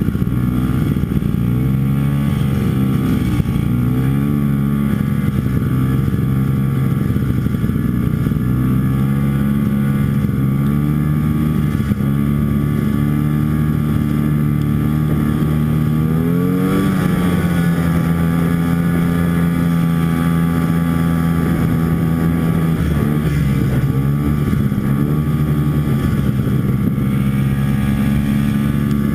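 Antique Ski-Doo snowmobile's two-stroke engine running under way. Its pitch holds steady with a few brief dips, then climbs sharply about halfway through as it speeds up and settles at a higher, steady pitch.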